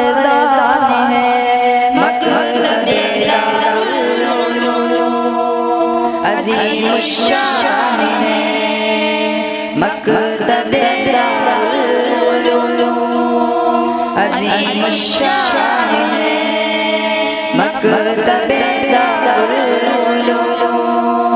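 Boys' chorus singing an Urdu tarana without instruments into a microphone, mostly long held notes broken by a few short phrases that move up and down in pitch.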